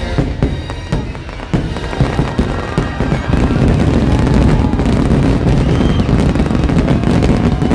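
Aerial fireworks bursting over show music: sharp bangs at first, then a dense barrage from about three seconds in, with the shells' reports merging into a continuous rumble.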